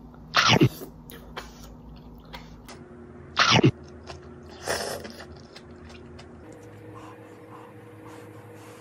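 A person slurping noodles and spicy malatang broth off a spoon: three loud slurps, about half a second in, at about three and a half seconds, and a softer one near five seconds.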